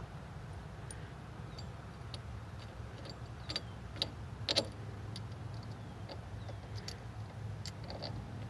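Steel nuts and washers clinking against each other and the stud as they are handled and stacked onto a new wheel stud: a scatter of small metallic clicks, a few louder ones in the middle, over a low steady rumble.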